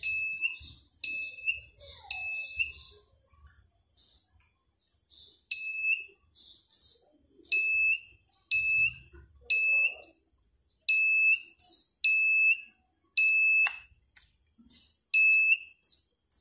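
Small handheld wand metal detector beeping as it is swept over a gold bangle: about a dozen short, identical high-pitched electronic beeps, each about half a second long, coming in uneven runs of two or three, its alert that metal is under the coil.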